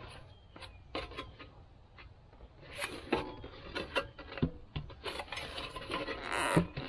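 Rubbing, scraping and clicking as a round LED marker light in a rubber grommet is pressed and worked into a test hole in a thin spare panel, with a louder rasping scrape near the end.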